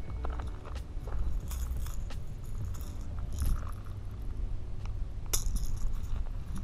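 Wind rumbling on the microphone, with scattered light clicks and clinks of fishing gear being handled, the sharpest of them about five seconds in.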